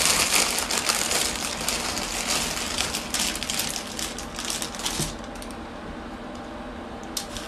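Clear plastic packaging bag crinkling and rustling in quick, crackly bursts as a shirt is pulled out of it. The crinkling stops about five seconds in, leaving quiet fabric handling.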